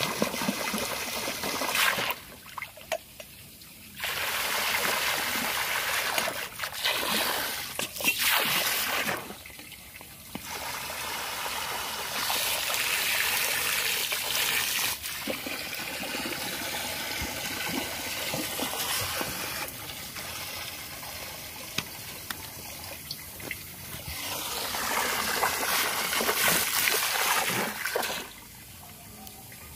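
Water running from a garden hose into a swimming pool: a steady splashing trickle that drops away briefly about two seconds in, again around ten seconds, and near the end.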